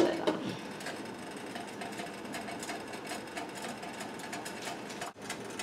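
Glass lid set down onto a metal cooking pot with a sharp clink at the very start, followed by steady faint background noise with an even, faint ticking pattern, which briefly drops out near the end.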